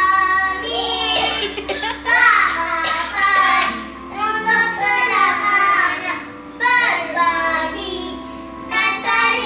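Young children singing a pop song together in high voices, one voice leading.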